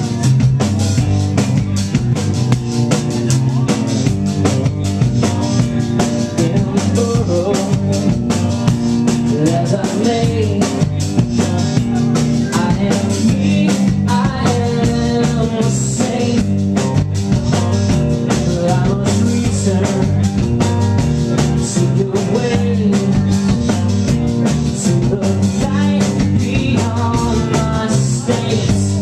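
Indie rock band playing live with a full drum kit driving the beat, heard as a raw, loud room recording.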